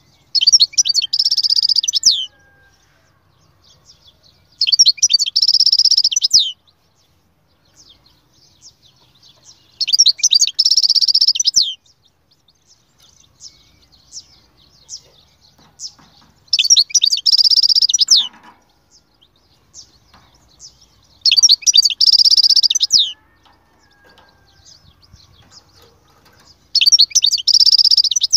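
European goldfinch song: six bursts of rapid, high twittering, each about two seconds long and a few seconds apart, with faint single chirps between them.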